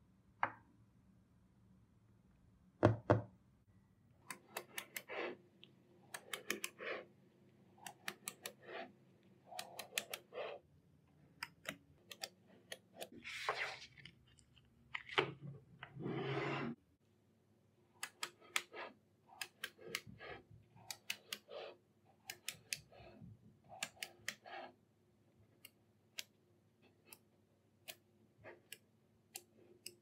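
Small magnetic balls clicking sharply as they snap together, one after another at an irregular pace. A couple of longer scraping sounds come around the middle.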